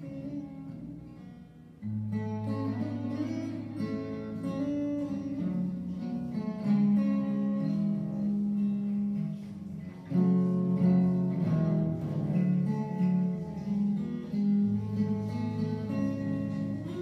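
Acoustic guitar played solo, picked melody notes over bass notes with no singing. It drops low about a second and a half in, then comes back louder with a new phrase.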